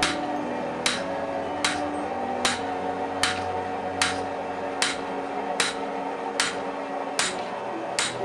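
Rounding hammer striking a hot sword blade on the anvil in a steady rhythm, a bit more than one blow a second, forging in the bevels. Background music runs underneath.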